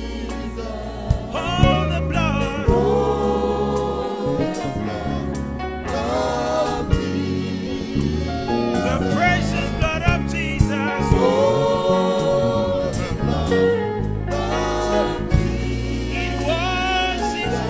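Church choir singing a gospel hymn, the held notes wavering, over a steady low bass accompaniment with a beat.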